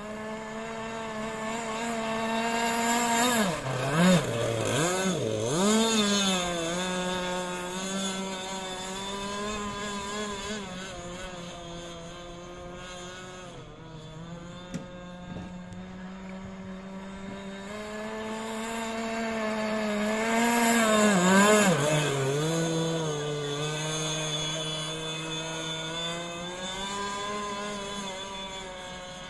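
26cc two-stroke petrol engine of a radio-controlled inshore racing boat running flat out. Its pitch dips and wavers about four seconds in and again about twenty-one seconds in, where it is loudest as the boat comes close.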